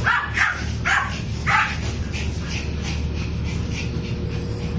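Dogs play-barking while romping: four sharp barks in the first second and a half, then fainter short yips, over a steady low hum.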